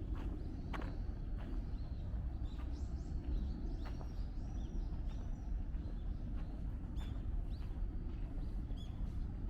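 Small birds chirping repeatedly in short, high calls over a steady low outdoor rumble.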